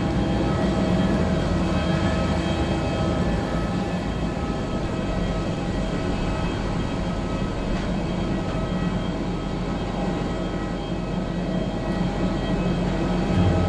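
Jet airliner engines running steadily: a low hum under several held whining tones.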